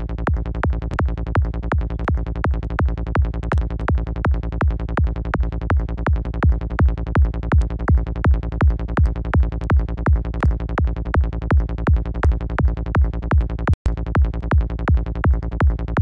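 Psytrance kick-and-bass loop in the key of A# from the KickNBassGel software synth, thumping at a steady fast pace of about two and a half kicks a second, with multiband distortion being dialled in on the kick's mid and low bands. The pulse gets louder about six seconds in and cuts out for an instant near the end.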